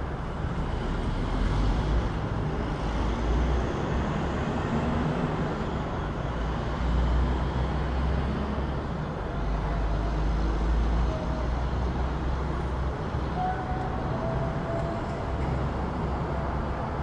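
City street traffic: a steady wash of passing vehicles with a deep engine rumble that swells and eases as they go by, and a few faint short tones in the second half.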